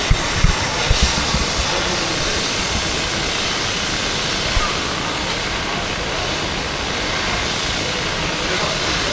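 Steady rushing of the Coquihalla River through its rock gorge, with a few low thumps about a second in.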